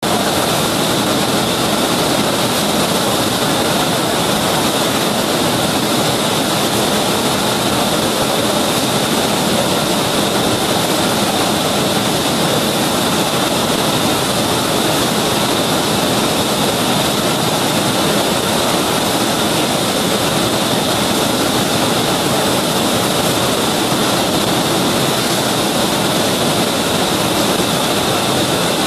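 A preformed-pouch filling and sealing machine (HPM Global Quadplex) running on a production floor: a loud, steady mechanical din with a constant high tone and no separate strokes.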